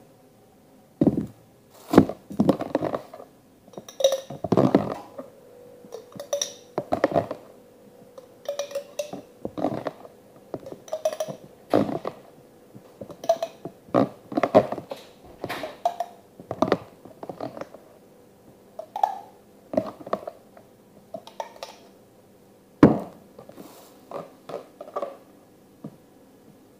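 Irregular knocks, taps and clinks of plastic and glass containers and a utensil being handled on a kitchen counter, coming every second or so, with two louder knocks about 2 and 23 seconds in. A faint steady hum runs underneath.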